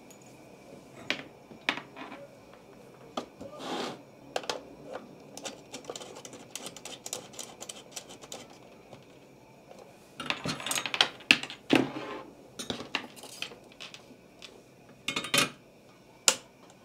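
Clicks, rustles and clatter of hands working a soldering station: swapping the soldering handle's plug-in cord and pressing the station's front-panel controls. A louder spell of clatter comes about ten seconds in, and a few sharp clicks near the end.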